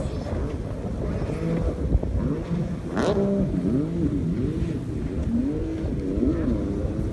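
Jet ski engines revving, their pitch rising and falling over and over as the craft speed up and turn on the water, with a short sharp burst of noise about three seconds in.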